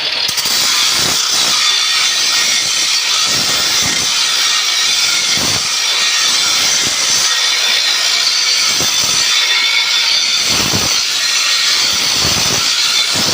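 Angle grinder grinding metal: a loud, steady, harsh hiss with brief irregular surges as the disc bites.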